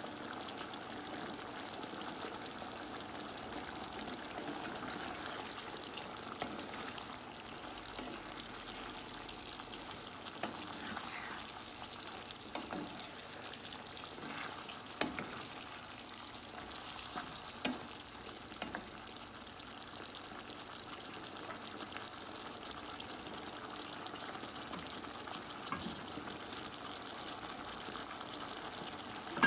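Pinakbet, a pork and vegetable stew, simmering in a pan with a steady sizzling hiss. In the middle a wooden spoon stirs it, with a few sharp knocks against the pan.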